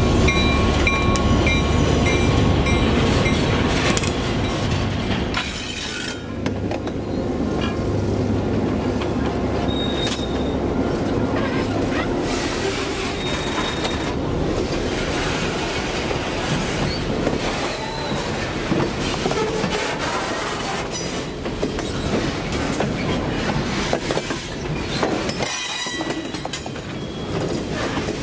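Diesel freight train passing close on rough jointed track: the locomotive's engine rumble and the end of its horn blast in the first few seconds, then the cars rolling by with clickety-clack and squealing wheels.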